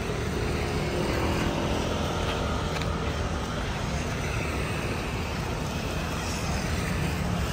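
Steady road traffic noise from cars passing along a busy street.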